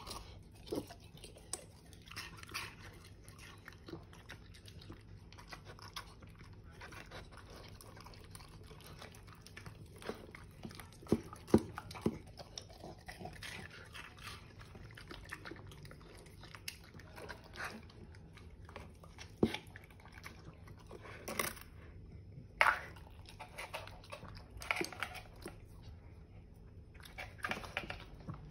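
Small bully-breed dog eating a raw meal out of a stainless steel bowl: irregular wet chewing and crunching, with sharp clicks and knocks against the metal bowl, a few much louder than the rest in the middle and the second half.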